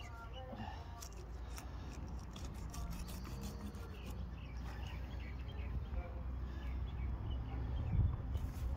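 Fillet knife cutting along the backbone of a large snapper, faint scraping and crunching through flesh and scales with scattered small clicks, over a low steady rumble.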